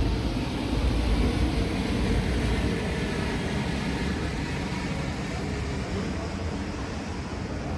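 City street noise: the low rumble of a passing vehicle, slowly fading away.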